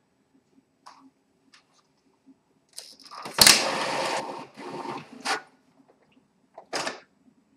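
Epson WorkForce inkjet printer's scanner unit lifted open with a loud plastic clatter and a sharp click about three and a half seconds in. Then the printer's mechanism whirs and clicks in short bursts as the cartridge holder moves to the cartridge-change position.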